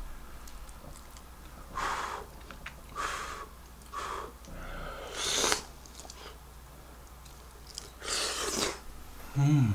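A person eating spicy braised chicken stew with rice from a bowl: several short slurps and breaths, the longest slurp near the end, followed by a short 'mm'.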